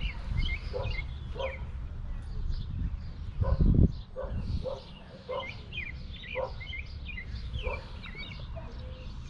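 Dogs barking over and over, roughly one bark every half second to second, with birds chirping. A low rumble on the microphone peaks in a thump a little under four seconds in.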